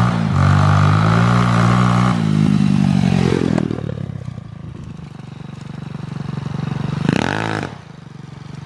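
200cc pit bike engine running hard close by, then dropping in pitch and fading as the bike rides away. About seven seconds in it revs up sharply in one short burst, then falls off abruptly.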